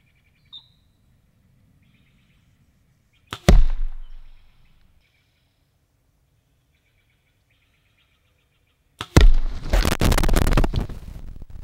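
A practice arrow strikes the ground close beside the microphone once, about three seconds in, with a single sharp crack, over faint bird chirps. From about nine seconds in there is loud rustling and knocking as the camera is picked up and handled.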